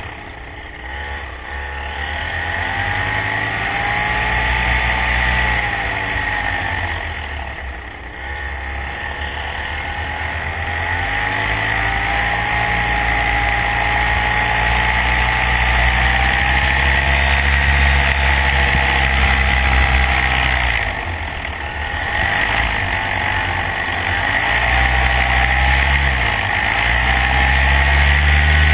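Motor vehicle engine running under way, easing off and picking up again several times so that its pitch drops and rises, with a steady high whine over it.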